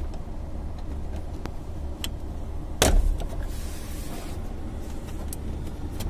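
Clip-held plastic dashboard trim panel on a Maruti Alto being pulled off by hand, with small plastic clicks and one loud sharp snap about three seconds in as a clip lets go. A low steady hum runs underneath.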